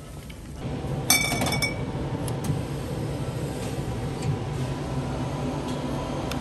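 Glass bottle clinking against the other glass bottles as it is taken from a refrigerated drinks case: one bright clink about a second in that rings briefly, over a steady low hum.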